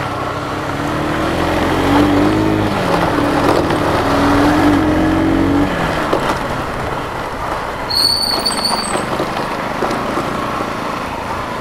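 Riding noise on a two-wheeler: engine and wind rush on the rider's microphone. A pitched tone wavers up and down through the first six seconds, and a short high whistle-like tone comes about eight seconds in.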